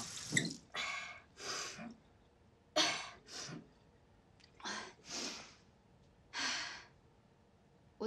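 A young woman breathing heavily and shakily: about seven loud breaths or sighs, several in quick pairs, with short quiet gaps between them.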